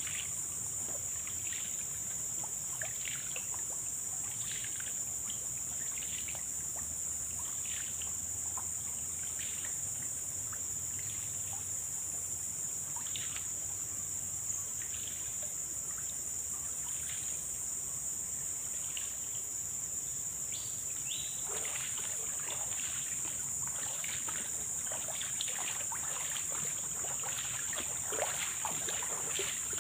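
Footsteps wading through shallow floodwater, a slosh with each stride, sparse and faint at first, then louder and more frequent from about two-thirds of the way in. Under them, a steady high-pitched insect drone.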